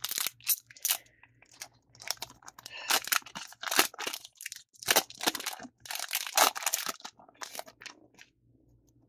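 Foil trading-card booster pack crinkling and being torn open by hand: a run of sharp, uneven crackles that dies away after about seven and a half seconds.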